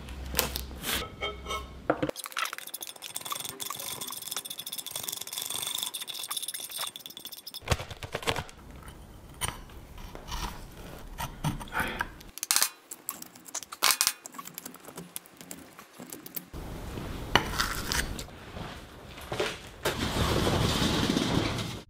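Flat metal scraper scraping and clinking against the rusted steel housing of a magnetic chuck, digging out caked corrosion and bacterial growth from inside the seized mechanism. The sound is irregular scrapes and clinks, with a steadier noise over the last few seconds.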